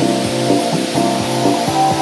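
Background music with a steady, regular beat of repeating pitched notes.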